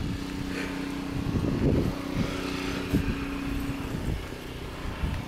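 Footsteps trudging through knee-deep snow, a few soft crunching thumps, over a steady low machine hum that stops about four seconds in.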